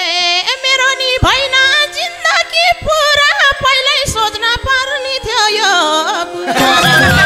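Nepali folk dohori music: a lead melody line with heavy vibrato over sparse madal drum strokes, and the fuller band coming back in about six and a half seconds in.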